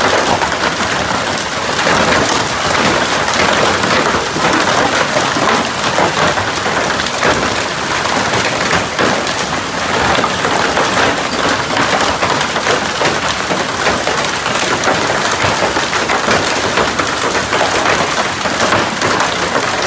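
Heavy hail falling: a steady, dense clatter of countless small impacts.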